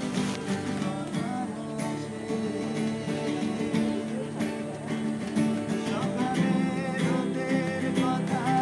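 Live singing to a strummed acoustic guitar, an amateur song performance played continuously.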